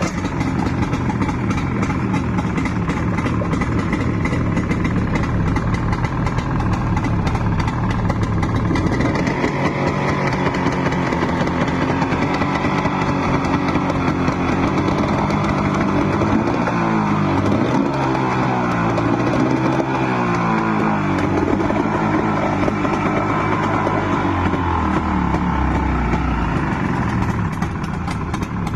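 A 40-horsepower engine running loudly, revved up and down several times past the middle, then settling lower toward the end.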